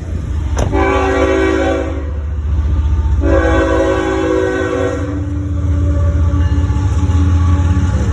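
CSX freight locomotive horn sounding two blasts, the second longer, over the deep rumble of the train, which grows louder toward the end.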